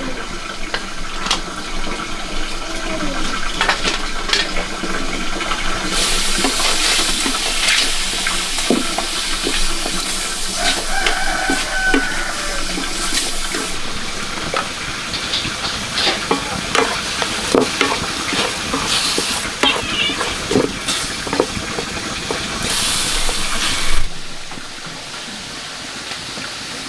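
Water pouring and splashing in stretches, with small knocks, while chickens cluck in the background; the water noise cuts off sharply near the end.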